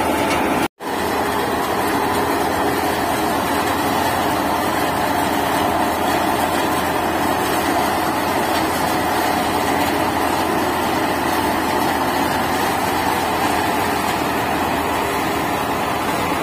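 Tractor-driven Santosh soybean thresher running at full speed while dried soybean plants are fed into it: a dense, even mechanical rush from the threshing drum and the engine driving it. The sound drops out for an instant under a second in.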